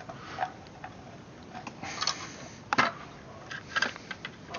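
Small clicks and scrapes of hands fitting a mounting bolt through a 3D-printed taillight housing and its metal bulb plate, with one louder click a little before three seconds in.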